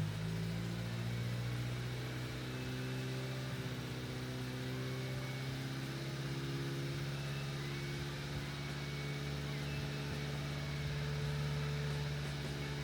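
1991 Subaru Sambar kei truck's small four-cylinder engine running steadily at idle, just after its valve seals were replaced.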